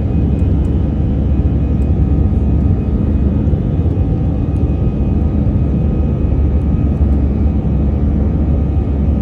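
Steady low drone of a jet airliner's underwing turbofan engines and airflow, heard inside the passenger cabin during the climb after takeoff, with faint steady whining tones above the drone.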